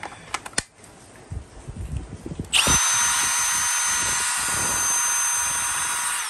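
A Milwaukee M18 2902 cordless hammer drill/driver runs free with no load in its low-speed range, a steady motor whine for about four seconds that starts quickly and stops abruptly. Before it come a few sharp clicks as the 5.0 Ah battery pack is snapped on, then handling of the tool.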